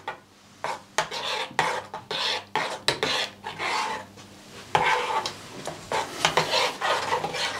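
Metal spoon stirring and scraping in an enamel pot, a quick run of scrapes against the bottom and sides, about three a second, as gelatine is stirred into the warm liquid until it dissolves.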